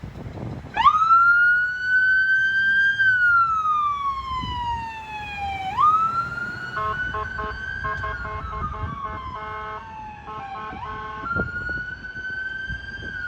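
Ambulance siren wailing, its pitch sweeping up, holding, sliding down and rising again, with a run of short repeated air horn blasts over it through the middle.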